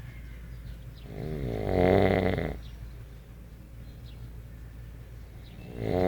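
Snoring: a long, pitched snore on the in-breath begins about a second in and lasts about a second and a half, and the next one starts right at the end, with the snores coming about every four seconds.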